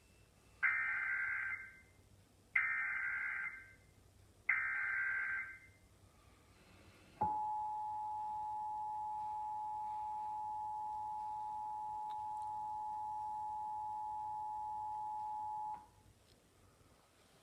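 Emergency Alert System test tones: three short bursts of SAME digital header data, each about a second long, then the steady two-tone attention signal held for about eight and a half seconds before it cuts off. The tones mark the start of a required monthly EAS test.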